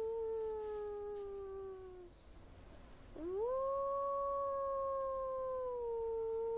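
Long, single-voiced howl: the first slides gently down in pitch and fades about two seconds in, then after a short break a new howl swoops steeply up and is held steady, dipping slightly near the end.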